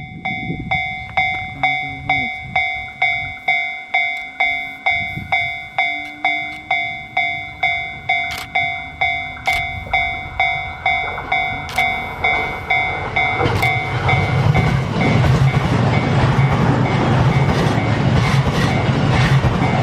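Japanese level-crossing warning bell ringing about twice a second. About 14 seconds in, a JR E657-series limited express electric train reaches the crossing and passes at speed, and its loud rushing rumble covers the bell.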